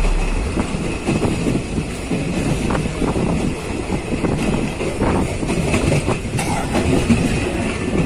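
Train running along the track: a steady rumble with the clatter of wheels over rail joints.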